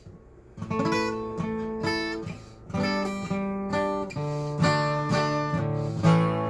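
Acoustic guitar playing a song's instrumental intro: ringing chords strummed and picked, starting about half a second in.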